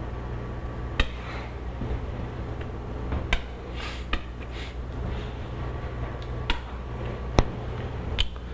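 Chalk on a blackboard: a handful of sharp taps and brief scrapes as a word is circled, over a steady low room hum.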